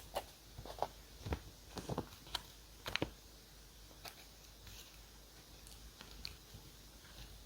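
Paper and stationery being handled on a desk: a quick run of short taps, clicks and crisp paper rustles over the first three seconds, then only a few faint ticks.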